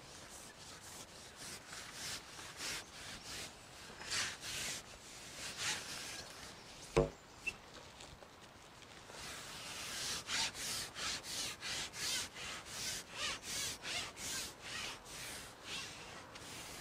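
A carbon match-fishing pole sliding through the hands and over its rest in repeated rubbing swishes, quickening to about two or three strokes a second in the second half. One sharp knock about seven seconds in.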